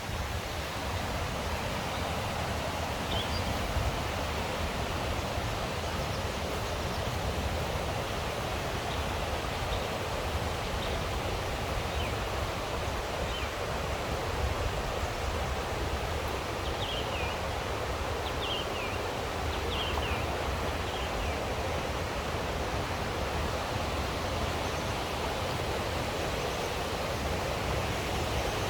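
Mountain stream rushing steadily over rocks. A few faint, short, high chirps come through in the middle.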